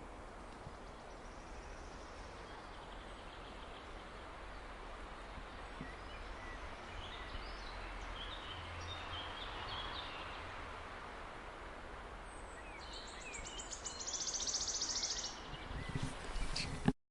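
Wigeons calling against a steady outdoor background hiss: scattered short high calls through the middle, then a louder run of rapid pulsed calls lasting a couple of seconds near the end, before the sound cuts off abruptly.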